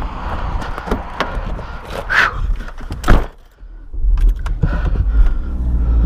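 Footsteps crunching on gravel, then a car door slams shut about three seconds in. After a second of muffled quiet inside the car, its engine starts and runs with a steady low rumble.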